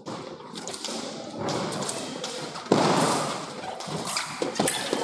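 Footwork of two foil fencers on the piste: quick steps and stamps with sharp taps in between, the loudest thud coming a little under three seconds in.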